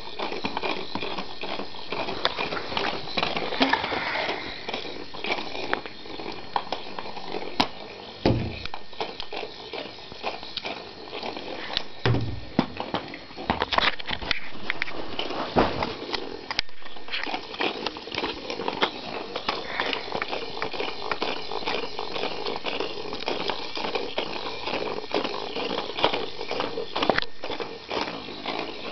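Battery-powered Weasel Ball toy running and rolling, its motor whirring under a continuous clicking and rattling, with a couple of dull thumps as it bumps into things about eight and twelve seconds in.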